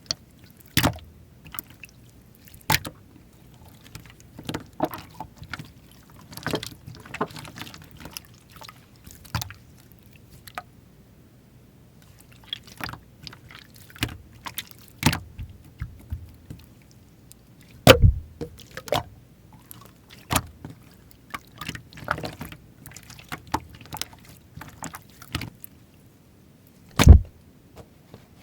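Slime being played with by hand: irregular sticky squishes, crackles and small popping clicks, with two much louder low thuds, one about midway and one near the end.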